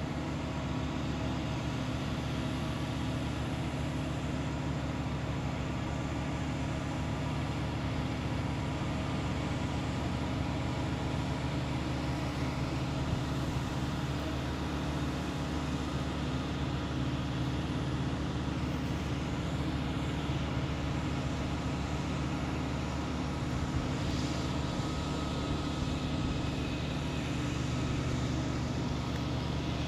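An engine running steadily at one unchanging pitch.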